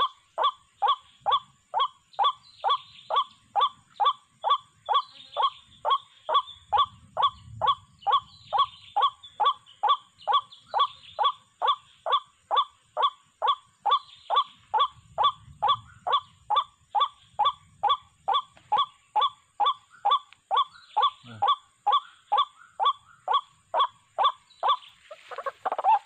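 White-breasted waterhen calling: one short, nasal, falling note repeated very evenly about twice a second without a break.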